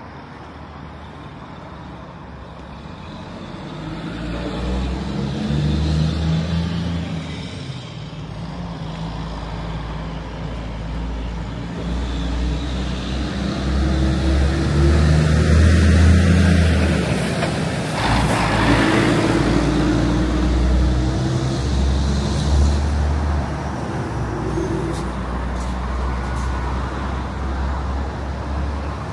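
Road traffic passing close by: the engines of cars and heavier vehicles rise and fade over a low rumble, the loudest passing about halfway through and ending in a short hiss.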